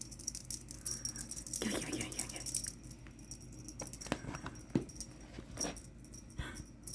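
A cat toy rattling and jingling in short, irregular bursts as a cat bats and tugs at it.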